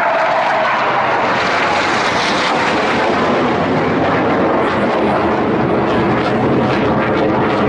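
Jet aircraft flying past overhead: a loud, steady roar, with a pitched whine sliding down just at the start as it passes.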